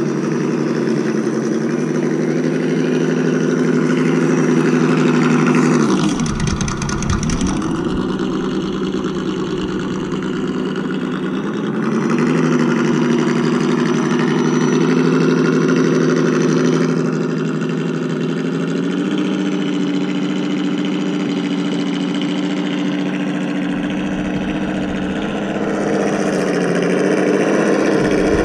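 Simulated scale engine sound from an ESS Dual sound module on an RC crawler, played through its small speaker. It runs steadily, dips in pitch and comes back up about six seconds in, and steps up in pitch twice later as the throttle changes.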